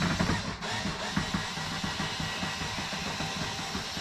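Background music with guitar, over a steady noisy hiss and rumble.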